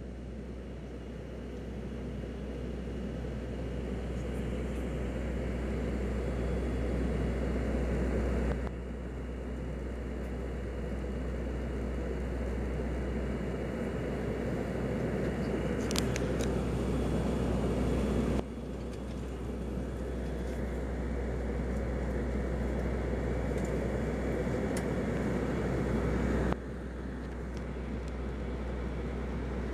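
Cabin noise inside an ATR 72-200 turboprop airliner on its descent to land: a steady drone of its Pratt & Whitney PW124 turboprops and propellers over rushing airflow, with a strong low propeller hum underneath. The level drops abruptly three times and creeps back up, and there is a brief sharp click about halfway through.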